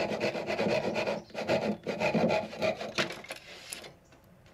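Handsaw sawing through a thermally modified ash deck board in quick back-and-forth strokes, about two to three a second. The sawing stops about three and a half seconds in, followed by a couple of light clicks.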